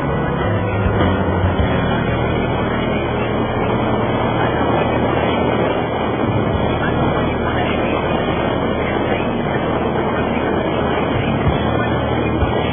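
Motorcycle engine running at a steady speed under heavy wind noise on the microphone, from riding at highway speed.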